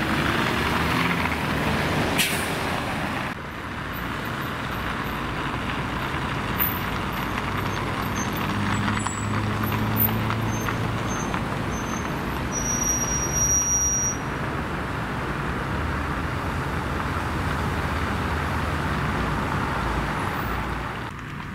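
City street traffic noise: a steady wash of passing vehicles with a low engine hum. Midway through, a high thin squeal sounds for about a second.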